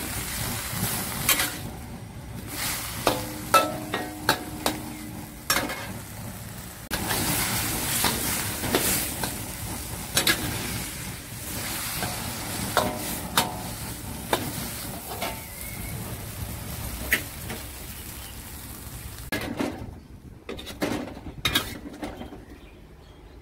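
Baby cabbage and shrimp sizzling in a hot wok while a metal spatula stirs them, scraping and knocking against the pan; a few strikes leave the wok briefly ringing. Near the end the sizzle drops away, leaving a few clinks.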